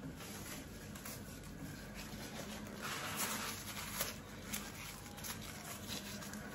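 Faint rustling and rubbing of hair wrap strips as they are tucked and smoothed flat around a molded short haircut, with a few soft taps.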